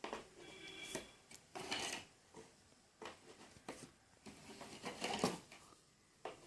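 Plastic parts of a collapsible PVC toy wardrobe being handled and fitted together: scattered faint knocks and clicks, with a brief squeak of plastic rubbing about half a second in.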